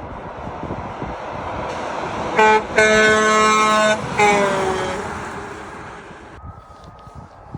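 Passing truck's horn: a short toot, then a long blast of about a second and a half, its pitch dropping at the end as the truck goes by. Under it, the truck's road noise rises and fades.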